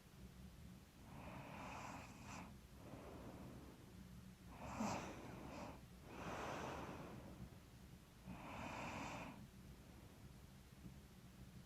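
A sleeping woman's slow, heavy breaths, four in all, with a snort-like snore on the breath about five seconds in. She may have been a little stuffy.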